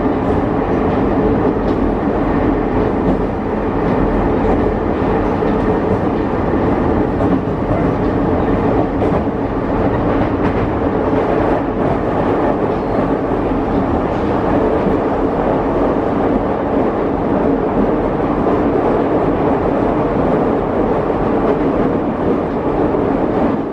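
Aonami Line electric commuter train running at speed, heard from inside the passenger car: a steady rumble of wheels on rail with a constant hum.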